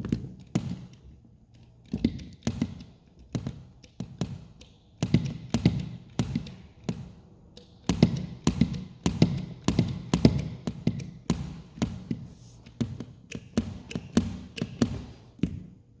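Hand crimping tool clicking and knocking over and over as it is squeezed repeatedly along a heavy-gauge cable connector, about two sharp clicks a second.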